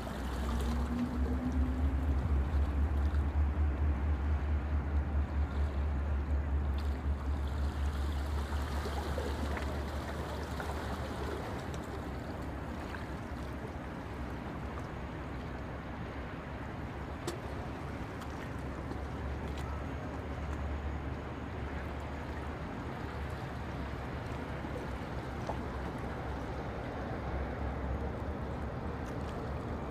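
Low rumble of a passing oil tanker and its escort tug, loudest in the first ten seconds and then easing, over a steady wash of water along the hull.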